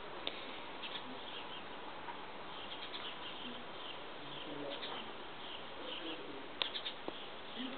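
Outdoor background: a steady hiss with scattered short, high chirps throughout, and a few sharp clicks about six and a half seconds in.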